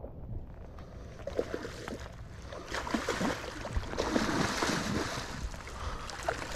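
A hooked musky thrashing and splashing at the water's surface beside the boat, the splashing loudest from about three seconds in.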